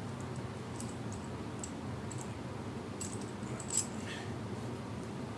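Light clicks and rattles of a plastic one-handed bar clamp being fitted and tightened on a guitar neck, a handful of separate ticks with one sharper click nearly four seconds in, over a steady low hum.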